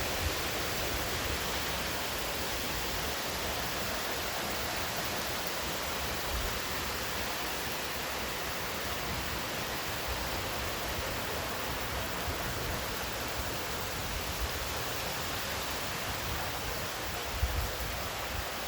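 Heavy rain falling in a steady, even hiss, with a few soft low bumps near the end.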